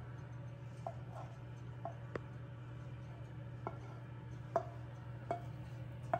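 A wooden spoon and a frying pan knock lightly against a metal cake pan as hot caramel is poured and scraped in. There are about eight short clicks, irregularly spaced, the loudest a little past the middle, over a steady low hum.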